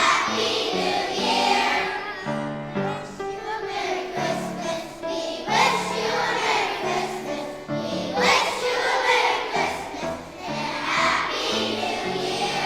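A chorus of young children singing together over a steady instrumental accompaniment.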